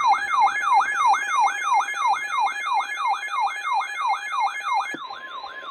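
Electronic siren alert: a rapid falling sweep repeated about three and a half times a second over a steady tone. About five seconds in, the steady tone gives way to a different single steady tone as the sweeps fade.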